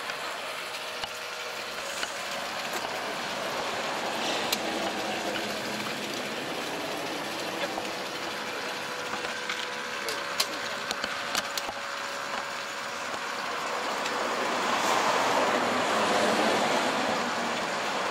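Steady noise of running water with a faint steady hum and a few light plastic knocks. The noise swells louder for a few seconds near the end.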